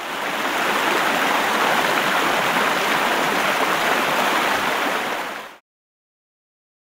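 Rushing river water, a steady even rush that fades in over the first second and cuts off abruptly about five and a half seconds in.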